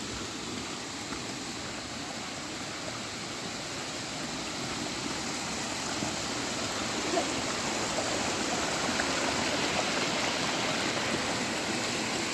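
Steady rush of a mountain stream's water, growing a little louder about halfway through.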